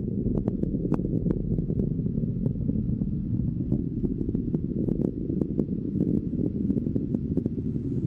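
Rocket engines during first-stage ascent: a steady low rumble with scattered sharp crackles.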